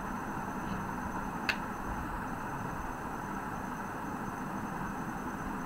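Steady background hiss and hum, with one short sharp click about one and a half seconds in as a tarot card is drawn and laid on the spread.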